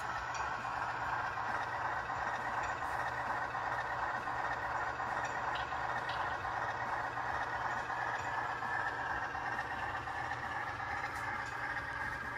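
Engine idle from an HO scale model diesel locomotive's sound decoder, running steadily through its small speaker.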